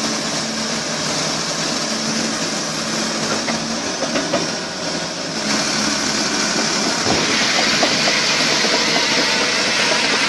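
Volvo EC380DL crawler excavator's diesel engine working hard, with steel tracks clanking, as its bucket pushes a tipper truck from behind. It gets louder about five and a half seconds in.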